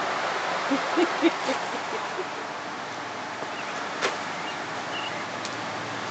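Steady rushing background noise, with a few short low tones about a second in and a single click about four seconds in.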